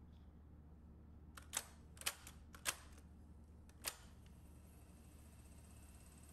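A run of sharp mechanical clicks, four of them loud, between about one and a half and four seconds in, over a faint steady low hum: the transport control keys of a 1968 Sony TC-560D reel-to-reel tape deck being pressed by hand to start playback.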